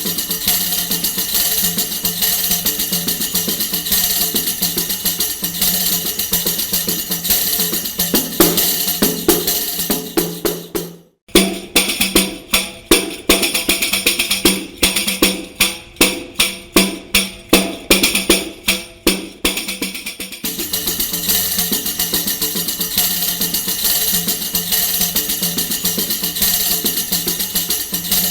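Tambourine played on its own: a continuous shaken jingle, then a brief stop about eleven seconds in. A run of separate struck hits follows, roughly two a second, before the steady shaking resumes at about twenty seconds.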